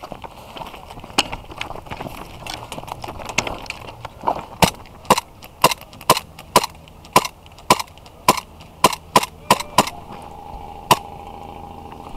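Airsoft gunfire: a string of about a dozen sharp semi-automatic shots, roughly two a second, then a pause and one last shot near the end. Before the shots, fainter rustling and ticking of movement.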